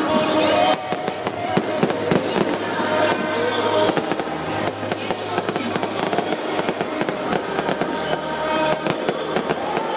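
Aerial fireworks display: a rapid, continuous run of bangs and crackling from shells bursting, with music playing underneath.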